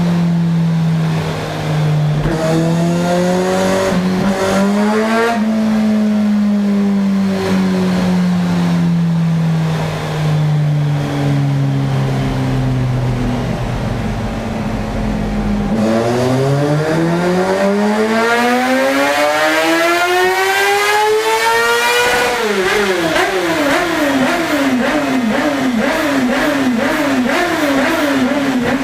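Kawasaki ZX-6R inline-four sport-bike engine running on a dyno. Engine speed wavers, then sinks slowly for about ten seconds, then about sixteen seconds in the engine is held open and revs climb steadily for about six seconds in a full-throttle dyno pull before the throttle shuts. It ends in quick repeated throttle blips, about one and a half a second.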